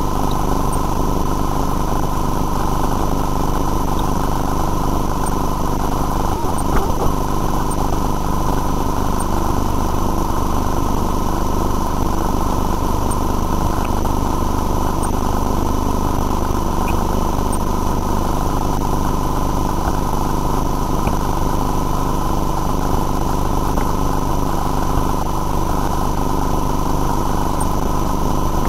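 Steady motor drone with a constant whine from a sewer CCTV inspection rig running during the pipe survey, with a brief low thump about seven seconds in.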